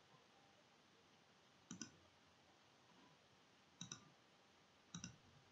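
Faint clicks of a computer mouse, three times about a second or two apart, each a quick press and release, over near silence.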